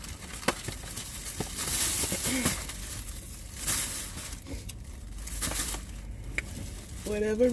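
Paper napkin rustling and crinkling in several short bursts as it is handled and wiped across the mouth, with a few light clicks.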